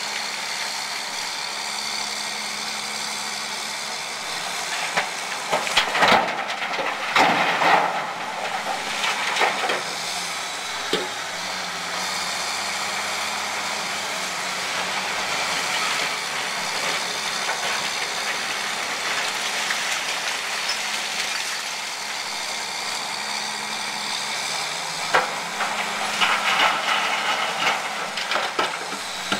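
Aveling-Barford machine's engine running steadily, with two louder, noisier spells over it, one about six seconds in and one near the end.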